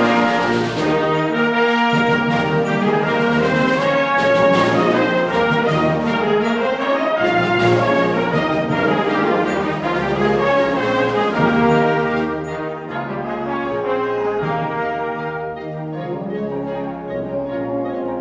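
Concert wind band playing: clarinets, saxophones, flutes and brass together at full volume, then dropping to a softer, thinner passage about two-thirds of the way through.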